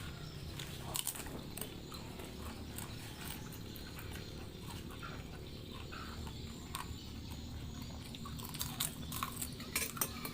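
Close-up chewing and mouth noises of someone eating fried noodles, with scattered small clicks that come more often near the end.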